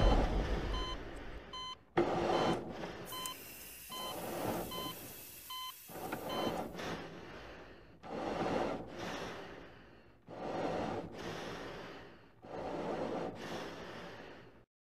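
Hospital heart monitor beeping steadily, one short high beep about every 0.8 s, stopping about six seconds in. Under it, slow heavy breaths swell and fade about every two seconds, and the sound cuts off abruptly just before the end.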